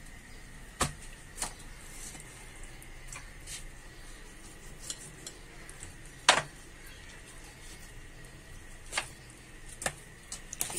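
Kitchen knife knocking against a stone countertop while slashing raw chicken pieces: about five sharp, separate taps, the loudest about six seconds in.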